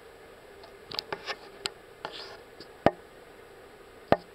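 A few light ticks and taps, then two sharp clicks about a second apart, over a faint steady hiss.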